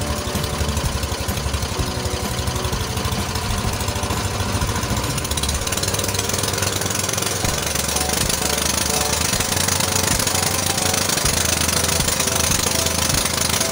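Small engine running steadily with a fast, even knocking beat. A hiss high up grows louder from about halfway through.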